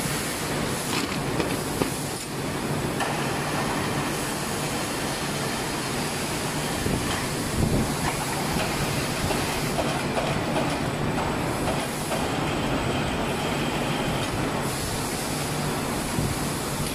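Steady running noise of rotational moulding machinery with a low hum, and a few metal knocks around the middle as the steel mould frame is unclamped and opened.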